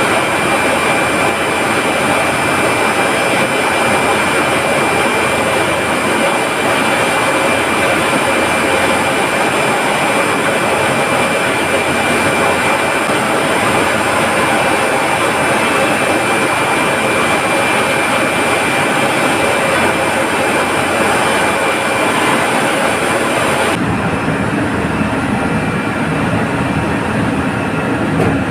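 Steady, loud machinery noise of a running reverse-osmosis water plant (pumps and motors), with a thin steady high whine over it. Near the end it changes abruptly to a duller, lower machinery hum.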